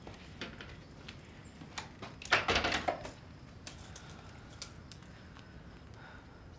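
A wooden door pushed shut, a short clatter of the door and its latch about two seconds in, among scattered light clicks and taps.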